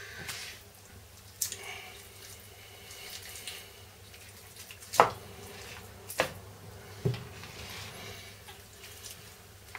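Boker PSK knife cutting and working through raw chicken on a plastic cutting board: wet squelching of skin and meat, with four sharp knocks, the loudest about five seconds in.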